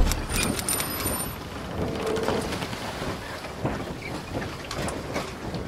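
Intro title sound effects: a deep boom at the very start, then a steady crackling hiss dotted with small clicks, with a faint high chime during the first second. It cuts off shortly before speech begins.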